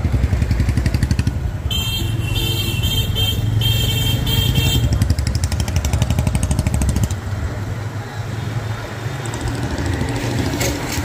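Motorcycle engine running as it rides through street traffic, its low sound easing off about seven seconds in. From about two to five seconds in, a vehicle horn beeps in quick repeated bursts.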